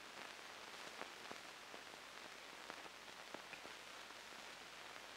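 Faint steady hiss with scattered small crackles and pops: the background noise of an old film soundtrack, with no other sound on it.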